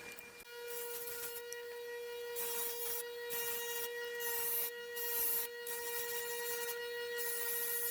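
An electric power tool's motor starting about half a second in and running with a steady whine, with repeated stretches of hissing as metal is worked against it, typical of polishing or grinding during a tool restoration.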